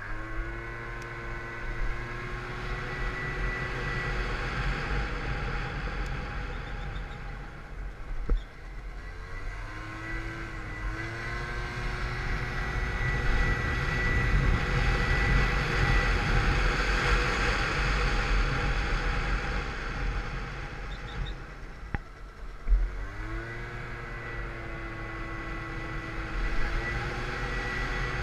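Peugeot Vivacity 50cc scooter engine, derestricted through its variator and rollers, accelerating under way: its pitch climbs and levels off at the start, again about a third of the way in, and again past three quarters, easing off in between. Wind rush on the microphone builds as it reaches speed in the middle.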